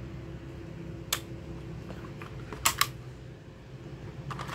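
Sharp plastic clicks from handling a Tokyo Marui HK USP spring airsoft pistol as its magazine is pulled from the grip: a single click about a second in, a quick double click a little later, and a few more near the end, over a steady low hum.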